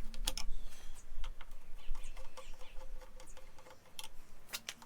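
Irregular clicks and taps of hand tools, screws and plastic as a stock motorcycle taillight is unscrewed and taken off.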